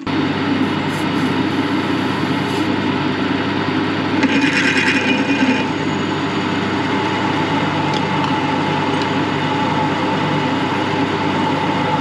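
Small metal lathe switching on and running steadily, turning a 5/8-inch bolt against an 8 mm drill bit that bores a hole down it. About four seconds in there is a short hiss of aerosol lubricant sprayed onto the work.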